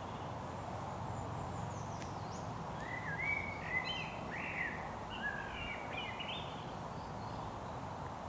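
A songbird singing one short phrase of whistled, pitch-bending notes a few seconds in, over a steady background hiss.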